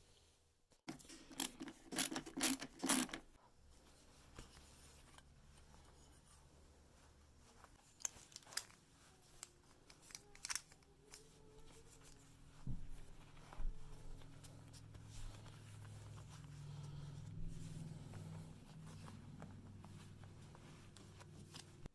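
Light clicks, taps and rubbing of metal buckle hardware and small screws being handled and fitted onto a wooden buckle, busiest in the first few seconds. A faint low hum runs under it.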